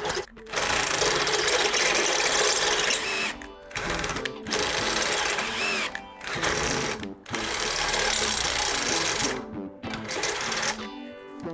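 Bosch cordless drill with a step drill bit boring out a hole in a stainless steel mounting bracket. It runs in bursts of a second or two with short stops between.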